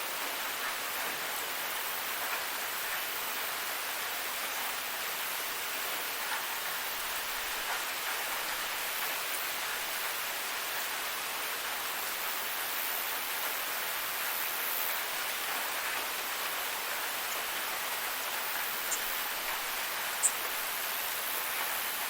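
Waterfall rushing with a steady, even hiss of falling water, with a few brief high-pitched ticks near the end.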